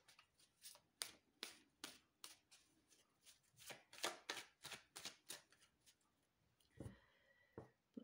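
A deck of fortune-telling cards being shuffled by hand, faint, the cards clicking together about three times a second. A short thump comes near the end.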